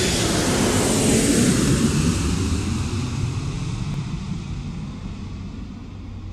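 Airplane flying past: a rushing engine roar that swells over the first second or so, then slowly fades away.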